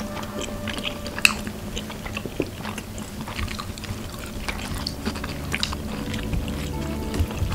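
Close-up eating sounds: chewing, with small clicks of wooden chopsticks against the plate and one sharper click about a second in.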